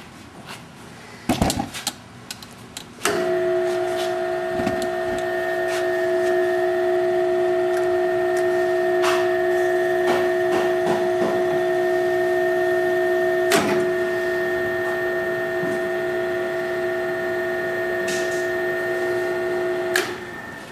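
Knocks about a second in, then a drill tap machine's motor starts with a steady hum while it drives three 10-32 taps at about 250 RPM. A sharp click comes partway through, and the motor stops near the end.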